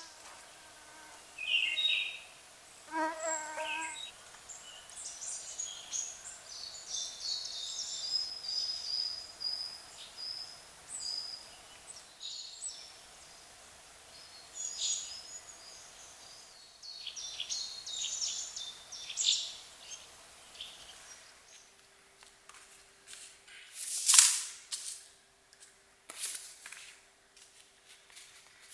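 Songbirds chirping and trilling, high and busy through most of the clip, with a fuller call about three seconds in. From about two-thirds of the way through, a low steady hum sets in, and a short loud crackling noise comes near the end.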